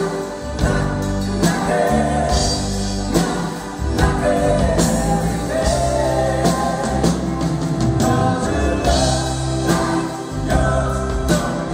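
A live band playing a song: a man singing lead over acoustic and electric guitars and drums.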